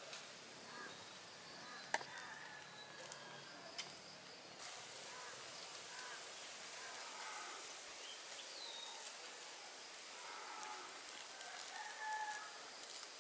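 Faint chickens calling, with short pitched calls that gather near the end, over a steady hiss that sets in about four and a half seconds in. A sharp click comes about two seconds in.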